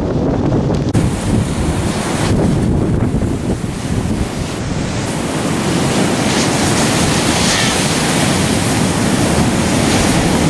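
Ocean surf breaking and churning, with wind buffeting the microphone. The rushing noise shifts abruptly a few times, about a second in and again after two and five seconds.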